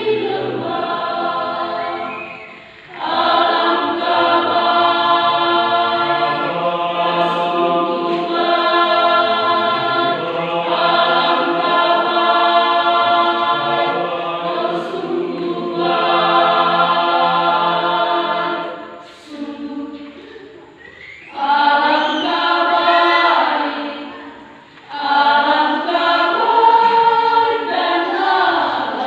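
Church choir singing in parts, long sustained phrases broken by short pauses for breath about three seconds in, around two-thirds of the way through and again shortly after.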